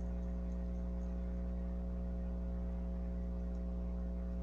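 Steady low electrical hum with several steady higher tones above it, unchanging throughout, with no other distinct sound.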